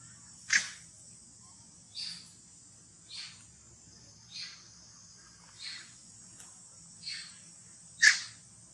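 Steady high buzzing of insects, with a short falling animal call repeated about every second and a half, loudest about half a second in and again near the end.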